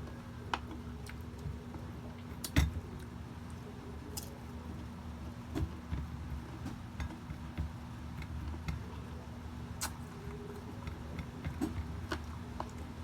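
Eating sounds: scattered clicks and taps of cutlery and dishes with chewing, the sharpest click about two and a half seconds in, over a steady low hum.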